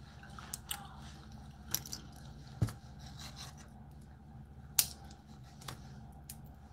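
Boiled blue crab claw shell being cracked and picked apart by hand: a scatter of short sharp snaps and clicks, the loudest about two and a half seconds in and again near five seconds, over a low steady hum.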